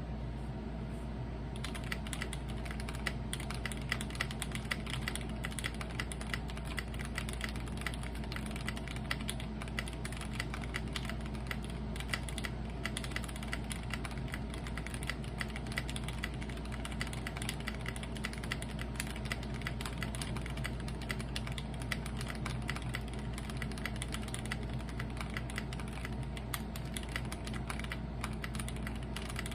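Continuous typing on a custom acrylic gasket-mount GOK 7V mechanical keyboard with C³Equalz x TKC Banana Split linear switches, a polycarbonate plate and GMK keycaps: a fast, dense run of keystroke clacks starting about a second and a half in.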